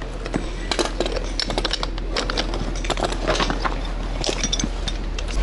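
Metal clinking and knocking: fire hose couplings and a metal dividing breeching with two valved outlets being handled and set down on asphalt, in many short, irregular clinks.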